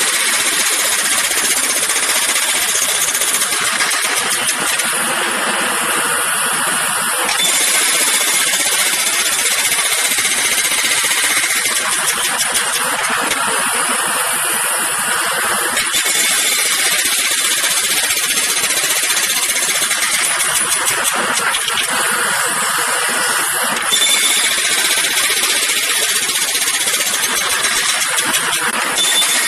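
Jackhammer hammering continuously at a rapid rate, its tone changing every few seconds, with a brief rise in level about 24 seconds in.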